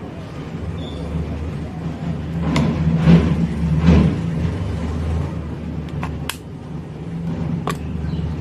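A low engine-like rumble swells to a peak three to four seconds in and then eases off. A few sharp clicks sound as the plastic casing is handled and opened.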